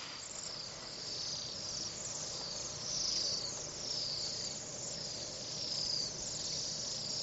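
A flock of waxwings calling: many high, thin trilled notes overlapping, each falling slightly in pitch.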